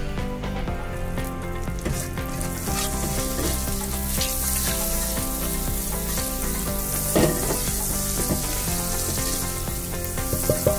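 Butter frying and sizzling in a pan over a gas flame while a spatula stirs it, with a couple of light knocks of the spatula against the pan, one about seven seconds in and one near the end.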